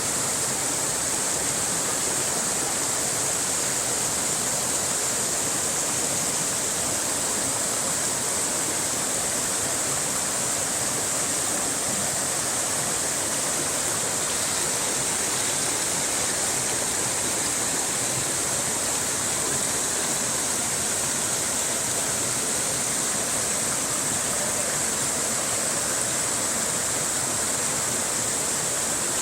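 Steady, unchanging rushing water, as of a stream or small waterfall, played as a white-noise background.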